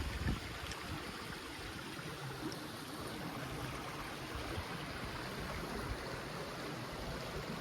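Steady rush of running water from a spring-fed stream, with a brief gust of wind on the microphone at the start.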